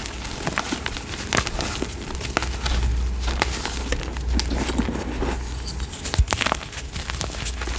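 A crumbly chalk block being crushed, with a run of irregular crunches and crackles and a low handling rumble in the middle.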